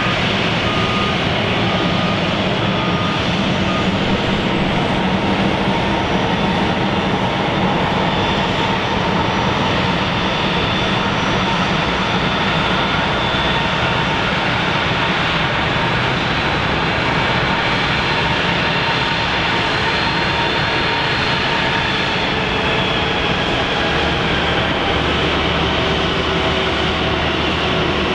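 Airliner engines running close by: a loud, even rush that holds steady throughout.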